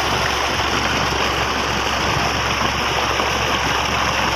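Water gushing out of a large pipe outlet into a pond, a steady splashing rush.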